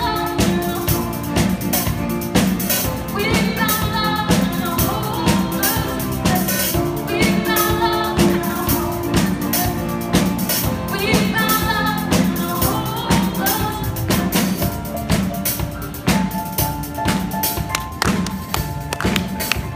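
Live rock band playing: drum kit with cymbals keeping a steady beat under electric guitar and bass guitar.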